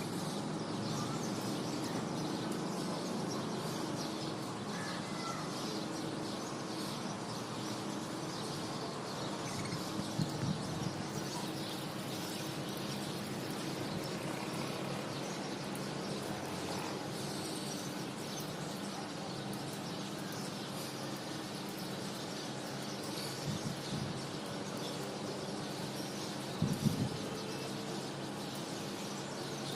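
Budgerigars chirping and chattering over a steady low hum, with a few brief knocks.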